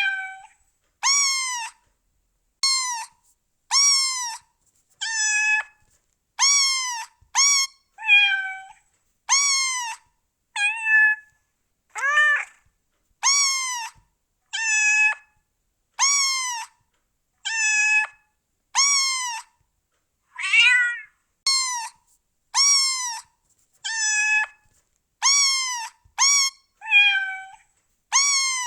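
Domestic cats meowing over and over, one meow about every second, each rising then falling in pitch, with silence between the calls.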